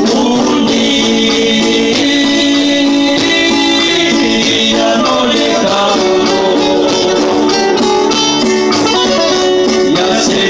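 Live conjunto music played through a PA: several acoustic guitars strumming and picking chords with a keyboard, with voices singing.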